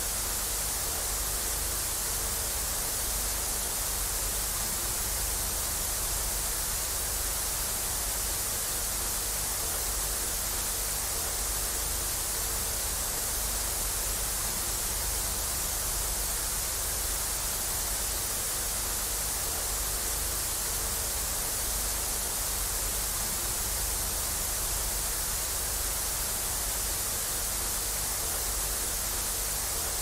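Television static from a blank channel: a steady, unchanging hiss, brightest in the high treble, over a low rumble.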